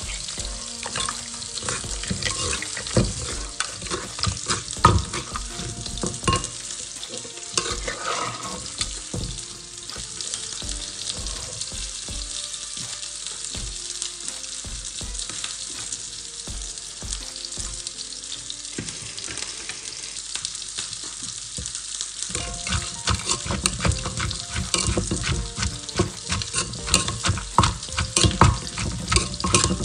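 Wooden pestle pounding and a metal spoon scraping in a clay mortar, bruising shredded kohlrabi with tomatoes and chillies for a spicy salad. It makes a run of dull knocks over a crackling rustle, busier and louder for roughly the last quarter.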